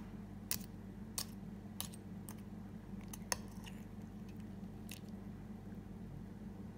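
Metal spoon cracking the thin caramelised sugar crust of a crème brûlée and digging into the custard: a few faint, sharp crackles and clicks scattered over several seconds, against a steady low hum.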